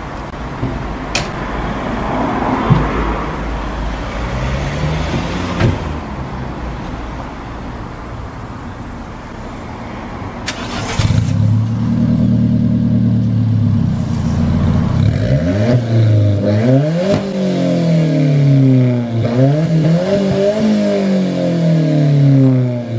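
Alfa Romeo 4C's 1.75-litre turbocharged four-cylinder engine. After about ten seconds of steady noise it starts, idles briefly, and is then revved in several rising and falling blips.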